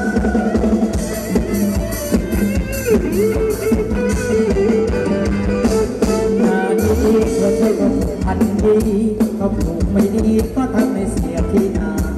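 Live band playing Thai ramwong dance music, a steady drum-kit beat under a sustained melody with sliding notes.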